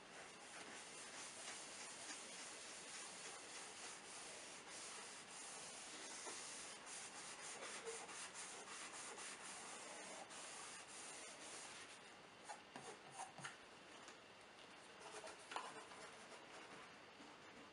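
Folded paper towel rubbed back and forth over the paper-covered top of a wooden cigar box, a faint steady scrubbing hiss. About twelve seconds in the rubbing stops, giving way to a few light knocks as the box is handled.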